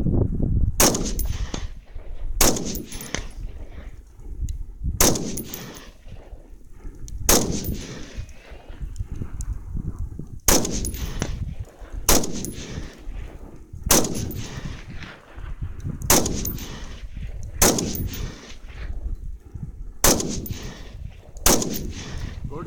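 AR-15 rifle in 5.56 firing single shots at a slow, steady pace, about eleven shots spaced roughly two seconds apart, each followed by a short echo.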